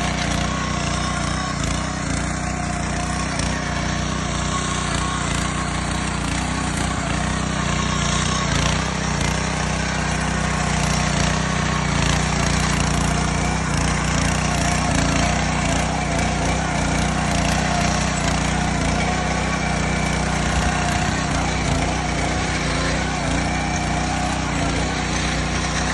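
Petrol rotary tiller's engine running steadily.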